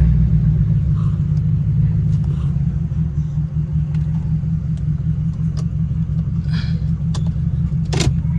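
Jaguar XJR's supercharged V8 running steadily just after being started, with no revving. A short sharp click near the end.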